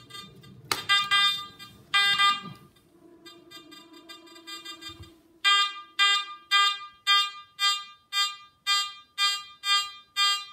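Garrett AT Max metal detector in all-metal mode beeping its target tone as a coin is waved back and forth past its NEL Tornado coil. A few uneven tones and a lower fading hum come first, then about halfway in a steady run of short, sharp beeps about two a second.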